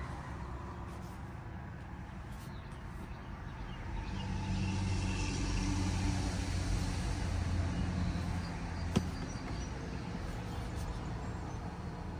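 Low vehicle hum heard inside the cabin of a Rivian R1T electric pickup, growing louder for a few seconds in the middle and then easing off, with one sharp click about nine seconds in.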